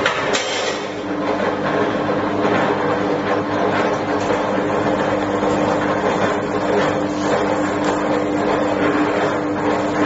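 Electric copper wire stripping machine running, its motor giving a steady hum over constant mechanical noise from the feed rollers as an insulated cable is fed through and stripped.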